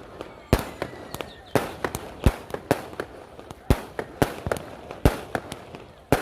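Firecrackers going off in an irregular run of sharp bangs, some loud and near, others fainter, one to three a second.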